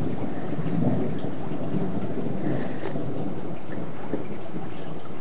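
Thunder rumbling low and continuously without a break.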